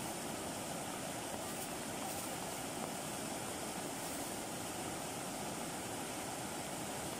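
Swift floodwater rushing and churning over submerged rice paddies: a steady, even rushing noise.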